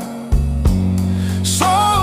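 Blues gospel song: the backing band plays on through a short break between sung lines, with sustained bass notes and a couple of sharp hits. The singer comes back in near the end.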